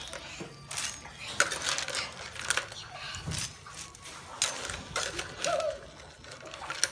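Slotted metal spoon clinking and scraping against a wok and a stainless mesh strainer as fried crab claws are scooped out, the hard shells clattering into the strainer in irregular knocks several times a second.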